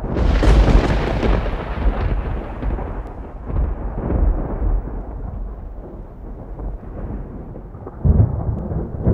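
Thunder sound effect: a loud thunderclap about half a second in that rolls away as a long rumble, then a second sharp clap about eight seconds in.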